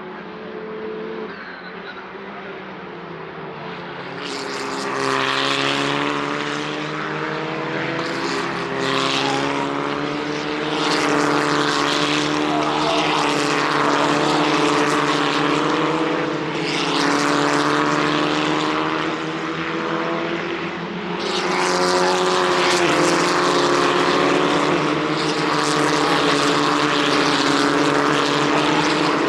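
Race car engines running at high revs on a circuit, several cars passing one after another, each pass swelling and fading, with the engine notes shifting in pitch through gear changes.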